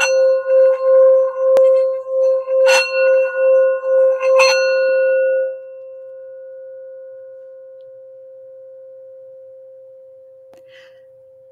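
Metal singing bowl rubbed around its rim with a mallet: a steady ringing hum that pulses about three times a second, with two sharp knocks of the mallet on the bowl midway. About halfway through, the rubbing stops and the bowl rings on alone, fading slowly.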